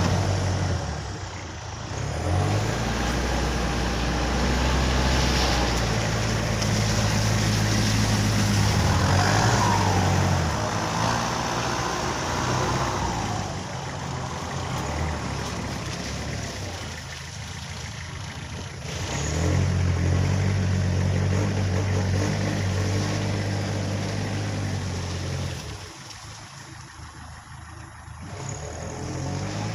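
A Kubota tractor's diesel engine working under load while towing a vehicle out of mud. The engine speed rises and falls repeatedly, and the sound eases off briefly three times, near the start, a little past halfway, and near the end.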